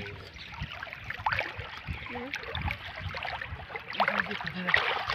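Shallow river water sloshing and splashing in small, irregular bursts as hands and legs move through it while groping for fish.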